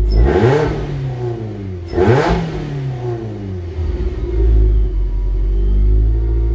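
Supercharged Volkswagen Scirocco engine blipped twice, about two seconds apart: each time the revs rise sharply and fall back, and it then settles into a steady, deep idle.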